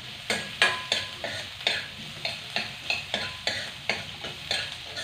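Metal spoon stirring onion, garlic and ginger in a frying pan, knocking and scraping against the pan about three times a second over a light sizzle of the frying aromatics.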